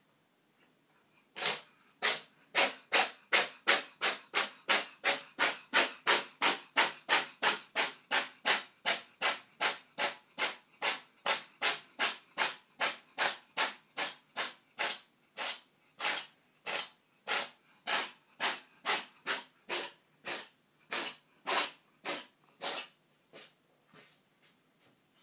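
A cat sneezing over and over in one long fit, starting about a second and a half in. The sharp sneezes come about three a second, spreading to about two a second, and the last few are fainter.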